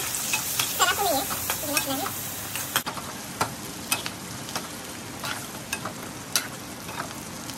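Rat meat and vegetables frying in hot oil in a wok, sizzling steadily. A steel spatula stirs them, scraping and clinking against the pan about twice a second.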